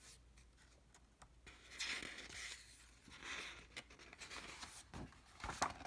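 Faint rustling and brushing of paper as a picture book's pages are handled and turned, with a few small clicks near the end.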